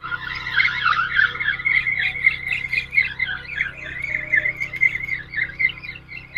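A chorus of frogs calling at night, a dense run of short, repeated chirps, over a low steady hum.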